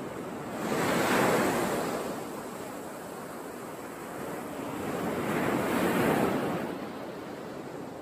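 Surf breaking and washing up on a sandy beach, with two swells of wave noise, one about a second in and another around six seconds in.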